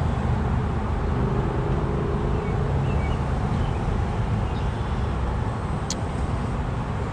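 Steady low rumble of road traffic, with a brief sharp click about six seconds in.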